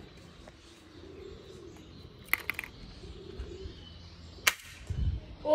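Plastic toy ball-bullet blaster with a pump grip being worked and fired: a quick run of three plastic clicks about two seconds in, then one sharp snap about four and a half seconds in, followed by a soft low thud.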